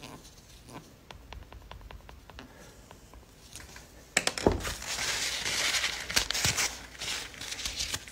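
Hand cleaning of a weapon light's lens edges with a cotton swab: a few faint light ticks at first, then louder crinkling and scrubbing rustle from about four seconds in.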